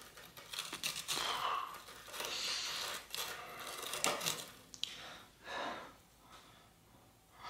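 Scattered light metallic clicks and scrapes from hands working the parts of a rust-seized SR Suntour T890 suspension fork, pushing its internal spring stacks up through the crown. Two sharp clicks stand out, about three and about five seconds in.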